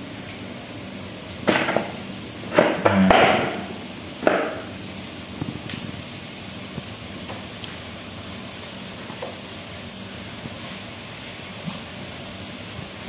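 Kitchen knife chopping mustard greens on a cutting board: a cluster of four or five sharp knocks of the blade on the board, about one and a half to four and a half seconds in, over a steady low hiss.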